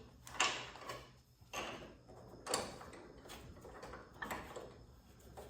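A handful of light clicks and knocks at uneven intervals from a car door's hinge bolts and hardware being worked as the door is fitted to new hinges.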